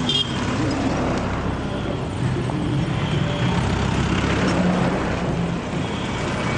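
Road traffic noise: vehicle engines running amid a steady, dense street din.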